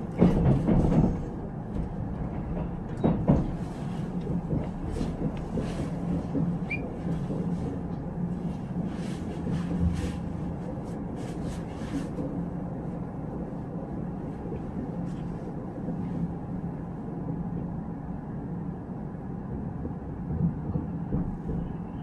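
Inside a Korail Nuriro passenger train rolling in to a station: a steady low rumble and hum from the running gear, with scattered clicks and knocks from the wheels over rail joints and points in the first twelve seconds. After that it runs smoother and a little quieter.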